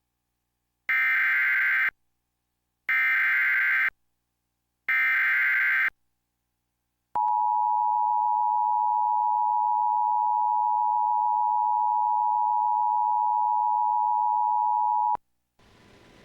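Emergency alert broadcast header: three shrill, screechy bursts of digital data code, each about a second long and about a second apart, then a steady alert tone held for about eight seconds that cuts off suddenly. It marks the start of a National Weather Service severe thunderstorm warning.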